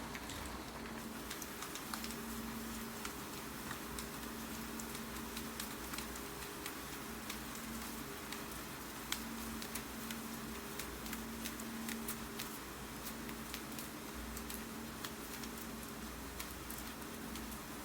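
Steady rain with irregular keystrokes on a computer keyboard clicking over it. A faint steady hum runs underneath.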